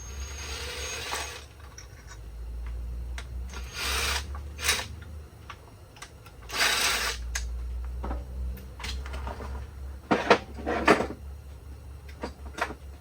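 A power tool run in several short bursts to loosen bolts on an engine being torn down, with clicks and clanks of tools on metal in between, over a steady low hum.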